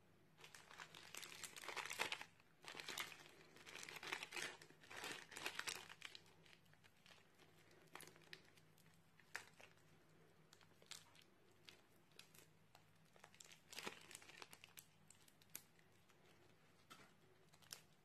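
Crunchy slime full of foam beads crackling and popping as fingers press into it: several bursts of dense crackling in the first six seconds, then scattered single pops, and another short crackle later on.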